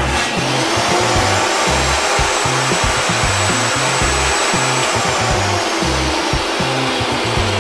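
A DeWalt DW744 table saw and a shop dust collector start together as the paddle switch is thrown, then run with a steady, loud whir, the sign that the new auxiliary switch powers both. Background music plays underneath.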